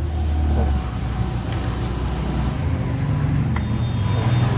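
A motor vehicle's engine running with a steady low rumble that shifts a little higher in pitch partway through, with a couple of light clicks over it.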